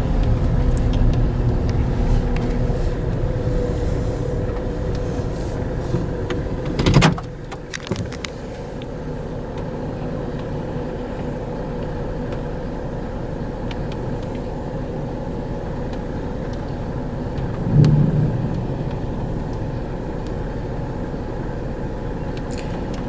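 Inside a car: engine and road noise while driving, with a sharp click about seven seconds in, after which it settles to a quieter steady hum. A brief louder sound comes near the end.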